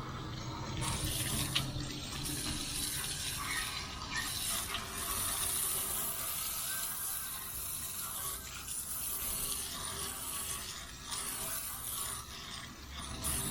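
Water spraying from a hose, rinsing degreaser off an old air compressor, with one sharp click about one and a half seconds in.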